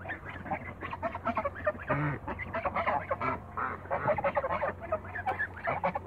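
A small flock of young African geese honking and chattering in short, overlapping calls as they peck at food on the ground.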